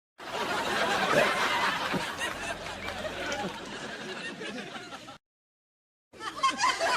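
Sitcom laugh track: a studio audience laughing together, loudest about a second in, then dying down and cutting off about five seconds in. After a second of silence a new burst of laughter starts near the end.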